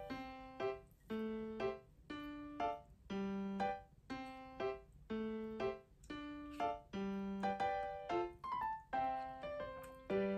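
Background music: a light electric-piano tune of short, bouncy notes at about two a second.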